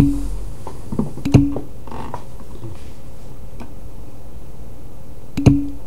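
Steady low background hum with three short clicks, each carrying a brief low tone: one at the start, one about a second and a half in, and one near the end.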